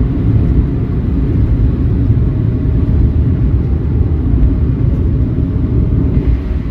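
Inside a moving car: steady low rumble of engine and tyre noise on the road.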